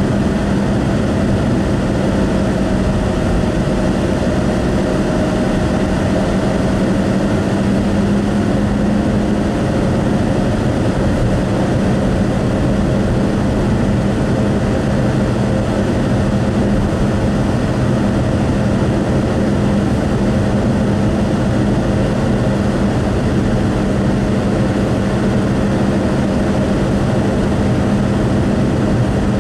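Car cruising on a highway, heard from inside the cabin: steady tyre and engine noise with a constant low hum.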